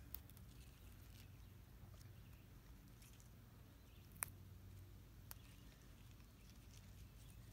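Near silence with a few faint sharp snaps as holy basil (tulsi) stems are pinched off by hand. The clearest snap comes about four seconds in, and another about a second later.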